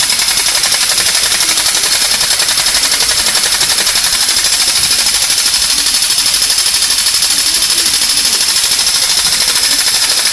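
Battery-operated TADA Japan TD 1800 tin toy machine gun running its firing-noise mechanism: a loud, rapid, even mechanical rattle.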